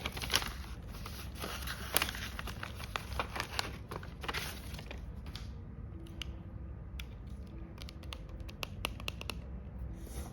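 Paper crinkling and rustling with sharp clicks and snips as a homemade paper blind bag is handled and opened. The sound is dense and busy for the first five seconds or so, then thins to scattered ticks and taps.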